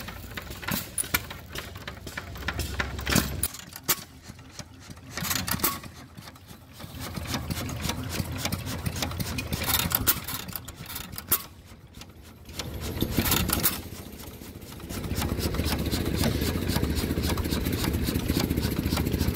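Antique gas engines running, with a dense string of sharp beats that rises and falls in loudness. About fifteen seconds in, a louder, steady engine sound takes over.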